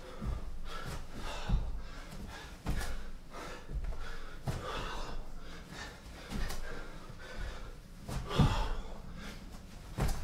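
A man breathing hard and gasping while doing burpees, with a dull thud about every one and a half to two seconds as his hands and feet land on a floor mat; the loudest thud and breath come about eight seconds in.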